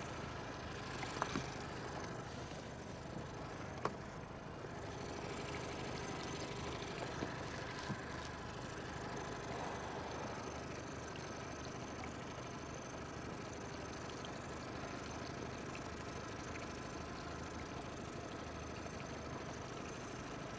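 An engine idling steadily, with a few sharp clicks and knocks in the first eight seconds.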